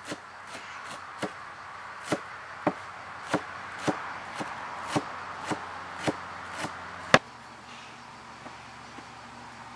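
Cleaver chopping fresh leafy herbs on a wooden cutting board, steady strokes about two a second. The chopping stops about seven seconds in with one sharp click, followed by only a few faint taps.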